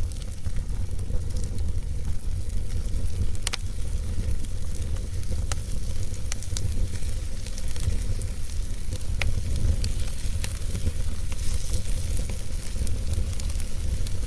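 Wood fire crackling in a fireplace: scattered sharp pops and snaps over a steady low rumble and hiss of the flames.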